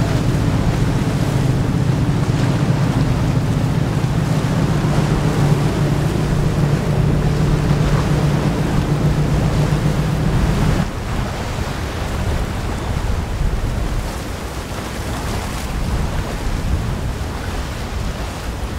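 Steady low engine drone under wind buffeting the microphone and the rush of waves; about eleven seconds in the drone cuts off, leaving wind and choppy water.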